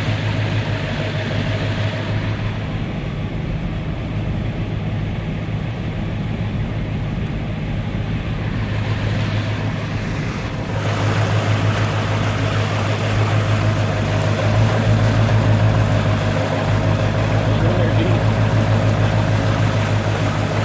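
A vehicle's engine runs with a steady low drone while driving through flood water, over a rushing wash of water. Both get louder about eleven seconds in.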